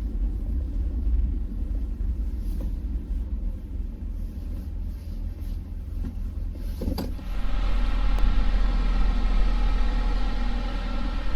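Low rumble of a vehicle on the move. About seven seconds in there is a short knock, then a steady engine hum with a strong pitched drone takes over.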